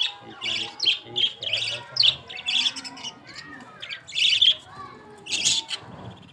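Pet parakeets (budgerigars and ringnecks) chirping and squawking in quick bursts of high notes, a new burst about every half second.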